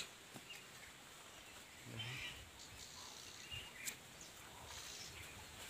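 Faint outdoor ambience with a few soft bird chirps and a light click about four seconds in.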